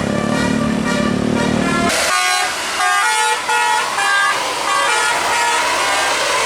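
Bus 'telolet' horn, a multi-trumpet musical air horn, sounding: it holds a chord for about two seconds, then plays a quick tune of short changing notes.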